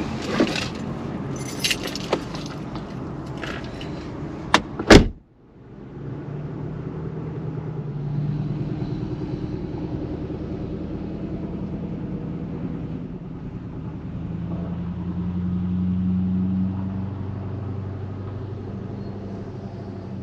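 Clicks and rattles of a Jeep door being handled, then two sharp knocks as the door shuts about five seconds in, the second one the loudest. After that a steady low hum fills the closed cab.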